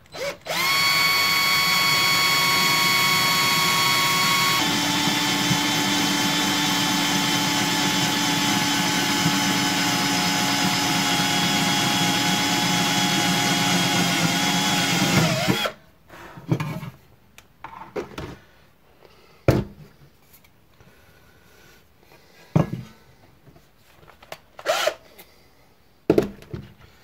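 Black+Decker cordless drill running steadily with a small 2 mm bit, drilling holes through sheet metal, its whine dropping in pitch about four and a half seconds in and stopping suddenly after about fifteen seconds. A few sharp knocks and clicks follow.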